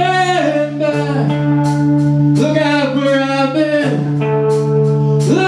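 A band playing live rock: distorted electric guitar and bass guitar holding steady notes over regular cymbal hits, with a man singing a wavering melody into the microphone.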